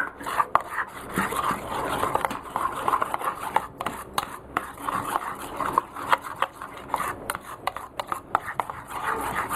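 A spoon stirring thick mango pulp and curd in a bowl, with quick irregular scraping and clinking against the bowl.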